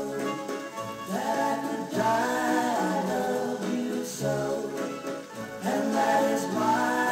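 A gramophone record playing on the Garrard 201B turntable of a BBC DRT/2 broadcast gram: a group of voices singing, with little treble in the music and a hiss above it.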